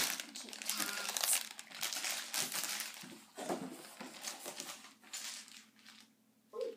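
Packaging crinkling and rustling in irregular bursts as the contents of a cardboard box are handled, dying away shortly before the end.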